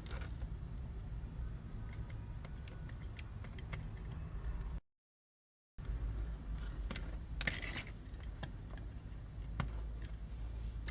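Small scattered clicks and taps of a cutting tool and small plastic sprue pieces being handled on a cutting mat, over a steady low hum. The sound cuts out completely for about a second partway through.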